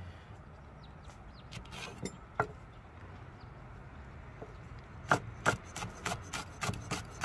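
Chef's knife slicing fresh green chili peppers on a wooden cutting board. A few scattered knife taps come first, then from about five seconds in a quick run of chops, about three a second.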